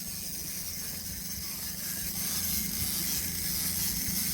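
Fishing reel being cranked fast against a hooked musky, over the steady running of the boat's motor at trolling speed.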